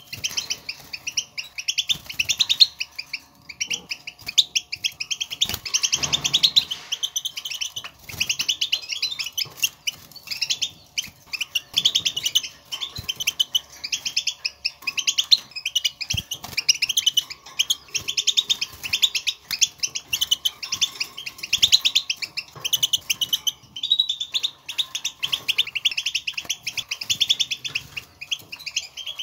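European goldfinches twittering: fast runs of high chirps, nearly continuous with brief pauses. This is the wild goldfinch contact call, which birds use to call to one another.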